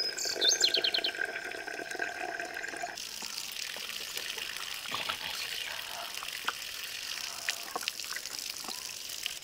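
A brief, rapid high-pitched trill over steady whistling tones. After an abrupt change about three seconds in, water trickles and splashes as a steady hiss with scattered drips.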